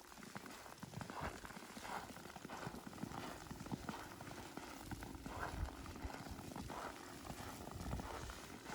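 Footsteps crunching through fresh powdery snow at a steady walking pace, about one and a half steps a second.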